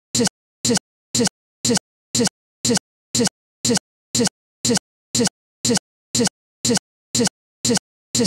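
A stuttering playback glitch: the same split-second scrap of audio repeats about twice a second, with dead silence between repeats.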